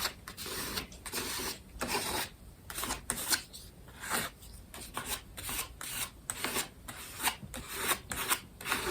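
Wet acrylic paint being scraped across paper with a scraper, in short rasping strokes, about one or two a second.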